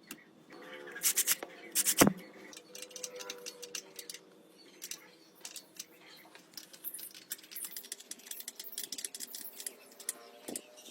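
Workshop handling sounds: small clicks, scrapes and rubs of tools and parts being worked by hand, with one sharp knock about two seconds in and a run of quick light clicks later on.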